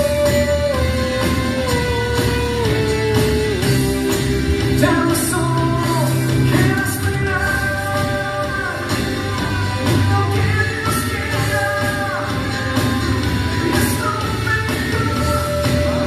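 Rock band playing live: a held, sliding melody line sung over electric guitar, bass and drums.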